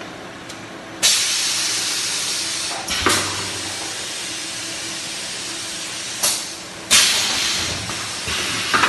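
Paper-tube gluing and finishing machine running with a low hum, broken by several sharp hisses of air, each starting suddenly and fading over a second or two.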